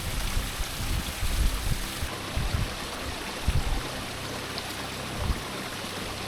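Steady rush of flowing water, like a stream or irrigation channel running beside the terraces, with irregular low rumbles on the microphone.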